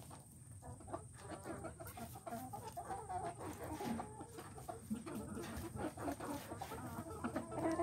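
A flock of hens clucking continuously, with many short calls overlapping one another.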